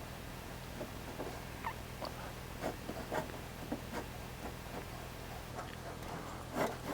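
Irregular faint clicks and ticks of a paintless dent repair rod working against the inside of a car's sheet-metal quarter panel, with one louder click near the end.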